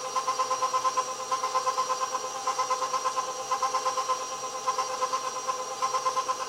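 Electric bowl-lift stand mixer running at low speed, beating flour into butter cookie dough: a steady motor whine that pulses about six times a second.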